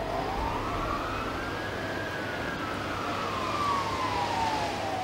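A siren wailing: one slow rise and fall in pitch over about five seconds, over a steady background hiss.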